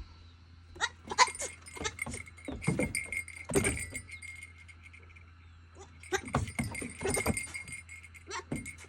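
Baby goat playing with a basketball: bursts of short knocks and scuffles, with quiet gaps between them.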